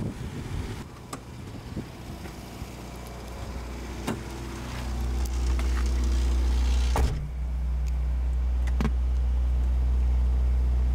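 Clicks and knocks inside a car, then the Toyota Corolla KE70's engine running with a steady low hum that builds from about five seconds in.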